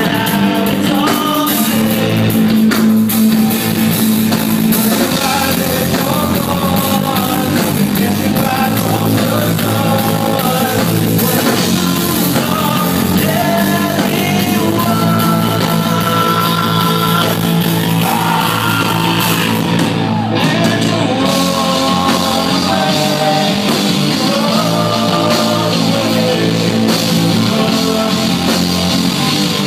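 Live rock band playing a song: electric guitars, bass guitar and drum kit, with a lead singer.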